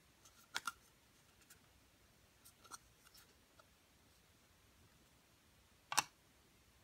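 Light plastic clicks as a miniature toy tray is turned over in the fingers, then a sharper tap about six seconds in as it is set down on a toy table.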